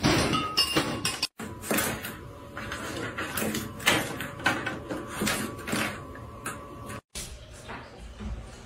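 Irregular series of light knocks, taps and rattles as a cat paws and bats a toy against a door and the floor, with the sound breaking off twice at cuts.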